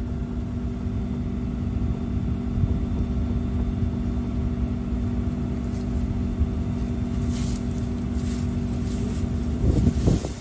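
Diesel engine of a John Deere 240D skid steer loader running steadily with a low rumble, heard from its cab, and briefly surging louder with a wavering note near the end.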